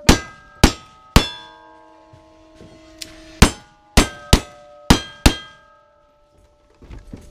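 Single-action revolver shots, each followed by the ring of a struck steel target. Three quick shots, a pause of about two seconds, then five more in quick succession.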